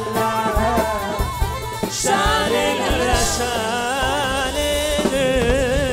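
Egyptian popular song performed live: tambourines and hand drums keep a dance rhythm under a wavering, ornamented sung melody.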